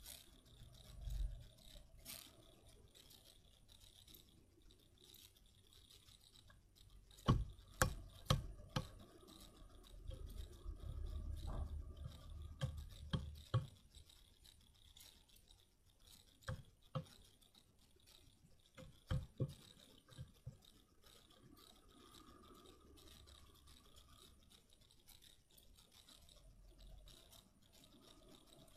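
Homemade slime activated with boric acid water being kneaded and squeezed by hand, giving scattered sticky clicks and squishes in a few short clusters.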